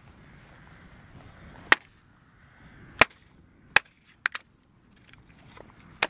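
Small axe splitting firewood on a log chopping block: sharp wooden cracks about a second apart, five or so in all, two in quick succession just after the middle.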